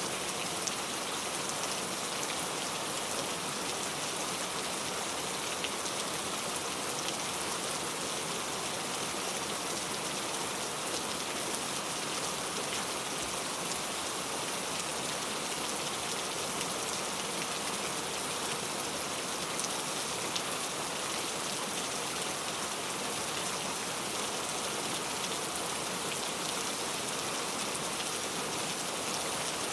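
Steady rain falling, a constant even hiss with many small drop ticks.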